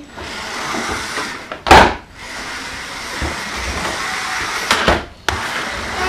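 Carrera GO slot cars running round the plastic track, their small electric motors making a steady noisy whirr. A loud sharp clack comes just under two seconds in, and a couple of quick clicks follow near the end.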